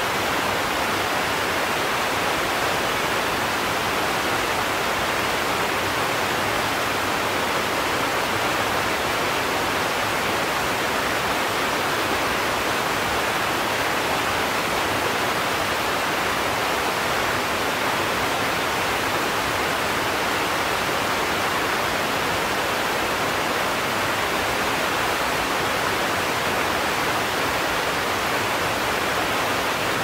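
Waterfall pouring and crashing in a steady, loud, even rush of water that never lets up.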